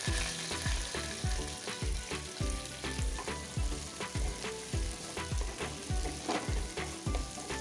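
Diced vegetables sizzling in hot oil in a kadai as a spatula stirs them. Background music with a steady beat plays underneath.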